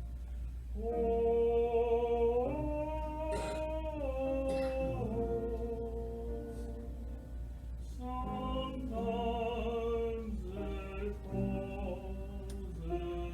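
Church choir singing a slow hymn in sustained chords, several voices holding each chord for a second or two before moving together to the next.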